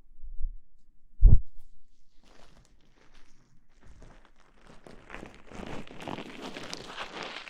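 Two dull thumps close to the microphone, the second the louder, then rustling and rubbing on the microphone that builds over the last few seconds.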